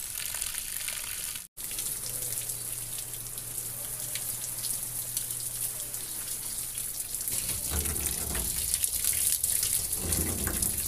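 Garden hose spraying water, a steady hiss, with a brief dropout about a second and a half in.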